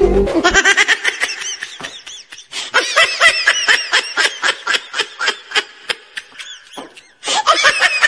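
Loud laughter: a long run of quick, high-pitched 'ha-ha-ha' laughs that breaks off briefly about seven seconds in and then starts again.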